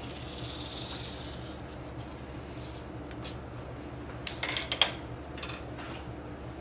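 Hands rubbing and handling a pugged clay log on a wooden table, then a quick cluster of sharp clicks and taps a little past the middle, the loudest part, over a steady low hum.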